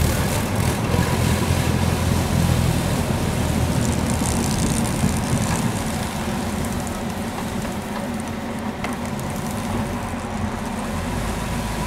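Sapporo tram snow-sweeper (sasara broom car) running along the track with its rotating bamboo brooms flinging snow: a steady low rumble with a hiss of thrown snow. The sound fades from about halfway through as the car moves away.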